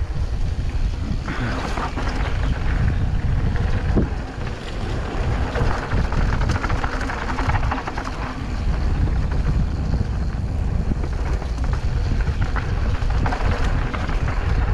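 Wind buffeting the microphone over the rumble of mountain bike tyres rolling down a dirt trail, with a few light knocks and rattles from the bike.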